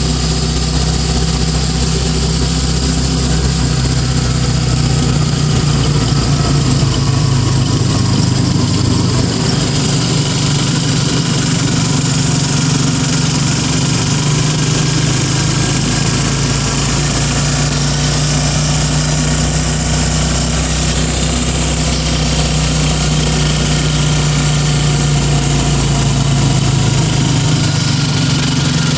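Motorcycle engine of a Philippine tricycle (motorcycle with sidecar) running steadily while riding along, its pitch drifting slightly up and down.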